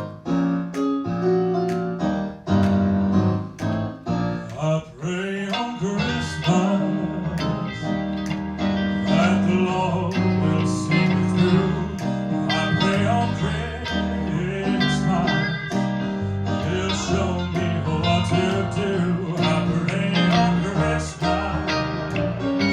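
Music: a band's intro to a Christmas song, opening with struck piano or keyboard chords, then a fuller band sound with guitar from about five seconds in.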